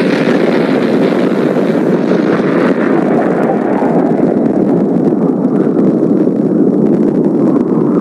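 Explosion sound effect standing for a nuclear blast: a loud, steady rumbling roar whose higher hiss fades over the first three seconds.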